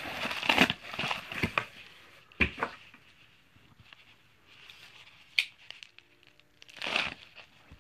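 Cardboard and a padded bubble mailer rustling and crinkling as the mailer is pulled out of a shipping box, with a sharp knock about two and a half seconds in. The handling then goes quieter, and a short rasp near the end is a knife slitting the mailer open.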